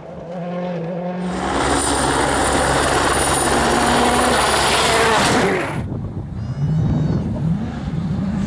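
World Rally Car engines, 1.6-litre turbocharged four-cylinders, heard in short edited cuts: an engine pulling away, then a loud blast of engine and rushing noise with a thin high whine from a car at full speed for about four seconds that cuts off abruptly, then an engine revving up and down at lower speed.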